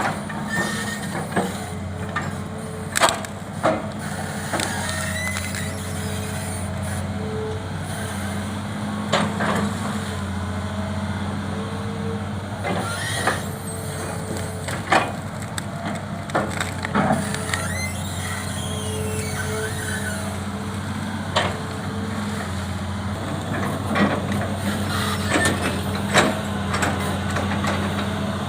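Hitachi Zaxis 200 excavator's diesel engine running steadily under work, with a whine that rises and falls as it works. Irregular sharp knocks and cracks of wood stumps and roots being moved and dumped.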